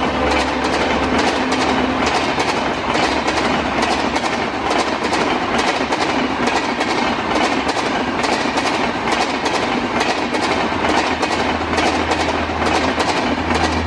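A fast passenger train of Humsafar Express coaches running past. The wheels make a steady loud rush with a rapid, regular clickety-clack over the rail joints.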